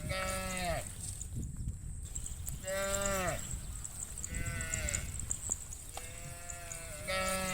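Cattle mooing: about five short, fairly high-pitched moos, each under a second and sliding down in pitch at the end, with a steady high hiss behind them.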